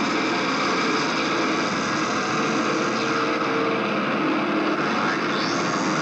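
Noise-rock band playing live through amplifiers: a loud, dense, unbroken wall of distorted noise, with a brief rising squeal about five seconds in.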